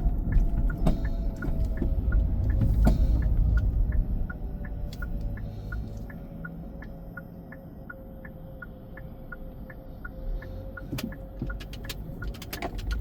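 Car cabin sound: low road and engine rumble that drops off about four seconds in as the car slows, with a turn-signal indicator ticking evenly, about two to three ticks a second, throughout.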